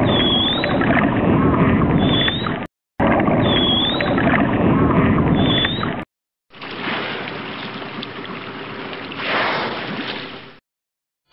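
A dolphin at the surface makes short, high, squeaky chirps over splashing water. The same few seconds play twice, with two chirps each time. Then comes a steady rush of splashing water from whales at the surface, with a louder surge near the end.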